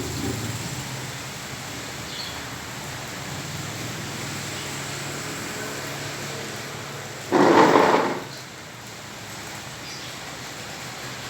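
Steady hiss of rain on a flooded street, with a low rumble fading out in the first couple of seconds. About seven seconds in comes one sudden loud rushing burst, under a second long, then the steady rain again.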